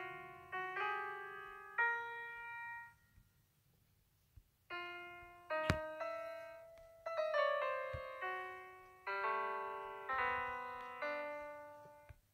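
Background piano music, notes struck and dying away. The music stops for about a second and a half a few seconds in, and a single sharp click sounds near the middle.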